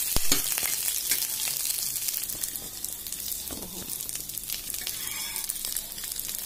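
Fresh drumstick (moringa) leaves sizzling and crackling in hot oil with a mustard-seed, cumin, chana dal and curry-leaf tempering, frying down until dry and crisp.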